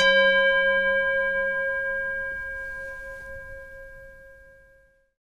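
A bell struck once and left to ring, several clear overtones fading slowly until the tone dies away about five seconds later.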